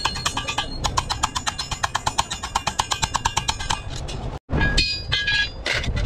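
Small hammer tapping fast and evenly on thin galvanized sheet metal laid over a steel bar, each strike ringing, as the sheet's edge is folded over. The taps stop about four seconds in, and after a short break there are a few ringing metallic clinks of the sheet being handled.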